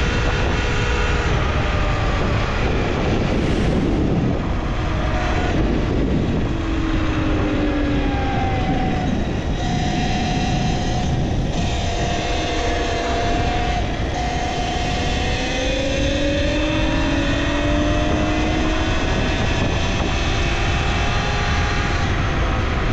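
Talaria Sting R electric dirt bike's motor whining while riding, its pitch rising and falling with speed, under heavy wind noise on the microphone.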